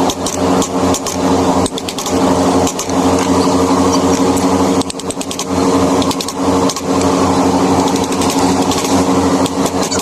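Small electric motor running with a steady hum, its sound dipping briefly a couple of times.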